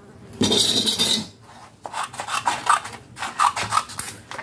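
A loud rustle about half a second in, then small scissors snipping through kraft cardstock in a run of quick, scratchy cuts.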